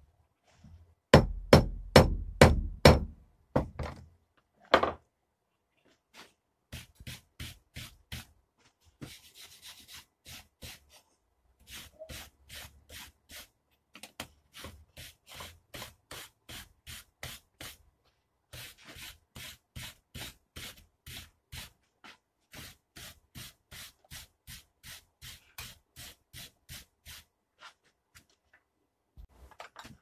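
Hand hammer striking hot steel on an anvil, about three blows a second. It opens with a loud run of blows, then after a short pause goes on as a long, steady run of lighter blows with a few brief breaks.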